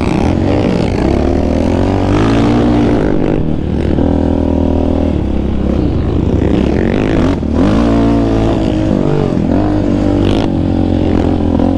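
Yamaha Raptor 700R quad's single-cylinder four-stroke engine with a Monster aftermarket exhaust, revving up and down under the rider's throttle. It lets off briefly three times, about 3.5, 7.5 and 10.5 seconds in.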